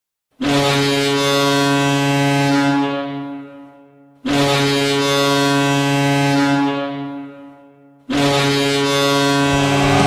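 Minnesota State Mankato Mavericks hockey goal horn: three long, deep blasts, each held steady and then fading out. Music starts under the third blast near the end.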